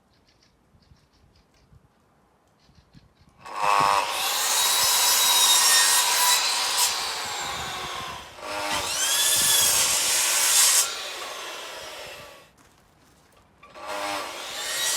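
A power tool working material in three runs of about four seconds each, with short pauses between, after a few faint clicks at the start.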